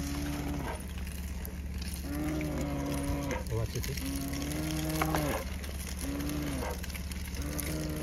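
An animal calling again and again: about five long calls, each held at one even pitch for about a second, a second or two apart.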